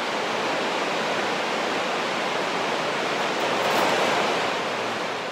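Woodland stream rushing over rocks: a steady, even rush of water that swells a little about three and a half seconds in.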